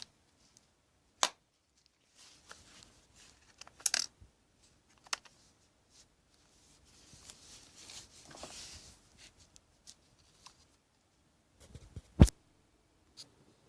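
Handling noise from a small camcorder and its battery: a few sharp plastic clicks and knocks, the loudest near the end, with soft rustling in the middle.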